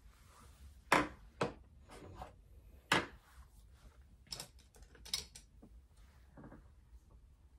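Small makeup items being picked up and set down on a tabletop: a handful of sharp clicks and knocks, the loudest about a second in and about three seconds in.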